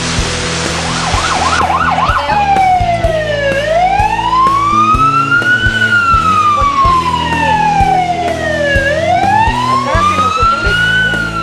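Emergency vehicle siren: a quick yelp warble about a second in, then a slow wail that falls and rises twice. At first it sounds over a loud hiss of rushing water, which cuts off suddenly after about a second and a half.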